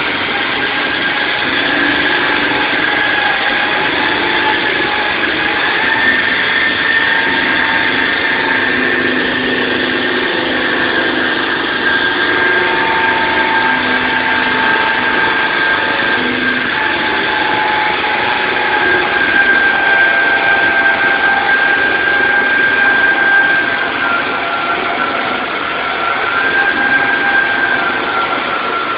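SAW160 concrete saw running steadily, its motor and blade making a loud, continuous whine that wavers a little in pitch.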